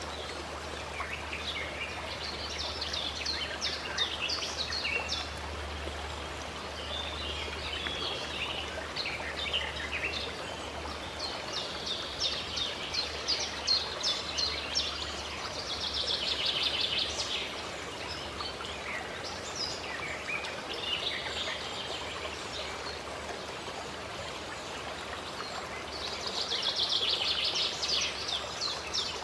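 Running water in a steady wash, with songbirds calling and chirping throughout and two bursts of fast trilling, one about halfway through and one near the end.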